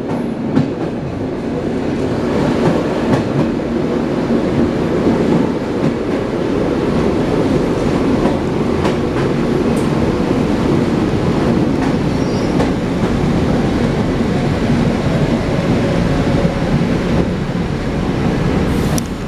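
ED9M electric multiple unit heard from inside the carriage while running: a loud, steady rumble of wheels on rails with the knocking of the wheels over rail joints, building over the first couple of seconds and then holding steady.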